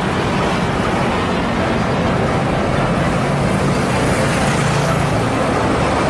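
UD Trucks Quester fuel tanker truck driving on a road: a steady low engine hum mixed with tyre and road noise.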